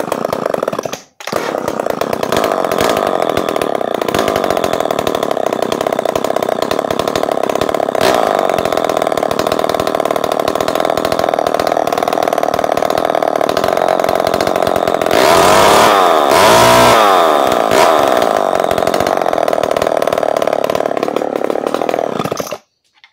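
Homelite XL-101 two-stroke chainsaw running loudly at a steady speed, revved up and down a couple of times with the throttle past the middle, then shut off suddenly near the end.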